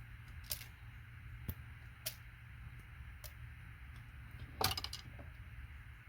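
Scattered sharp clicks and taps of hand tools and small metal pins as pins are worked out of scrap gold-plated computer connectors, with a quick louder cluster of clicks near the end, over a low steady hum.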